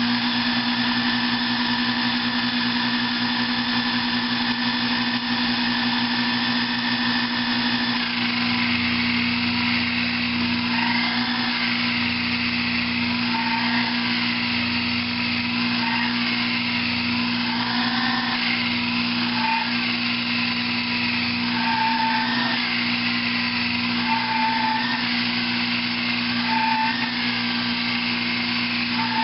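Sherline mini lathe running steadily while a rear-mounted, upside-down cutoff tool parts off the spinning workpiece. From about eight seconds in, the cut adds a wavering whine that rises and falls and comes and goes over the motor's steady hum.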